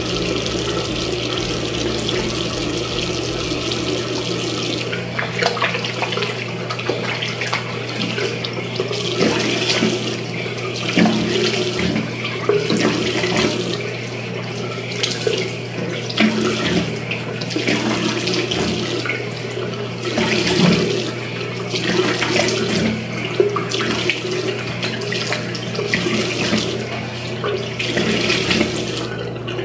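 Bathroom sink tap running steadily. From about five seconds in there is irregular splashing as water is scooped up to rinse soap lather off the face.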